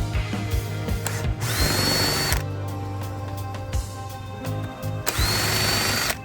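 Cordless drill/driver running twice, each about a second long, its motor whine rising and then holding steady as it backs screws out of the trimmer's housing. Background music plays underneath.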